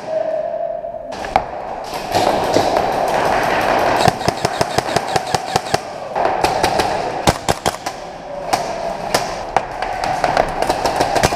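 Airsoft gunfire: single shots and short quick bursts of sharp cracks at irregular intervals, over a steady noisy background.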